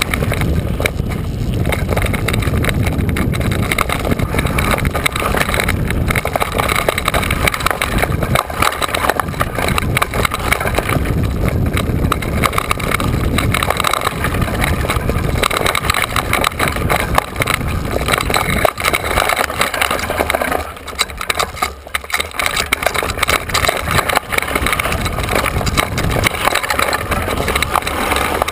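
Mountain bike riding fast down a rough dirt singletrack, heard from an onboard camera: wind buffeting the microphone and the bike rattling and clattering over the ground. It eases briefly about three-quarters of the way through.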